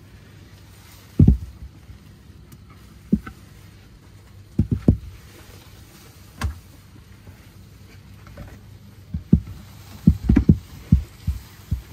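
Dull thumps and knocks of a Hyundai Ioniq 5's carpeted cargo floor board and boot panels being lifted, shifted and set down, scattered through and bunching into a quick run of knocks near the end.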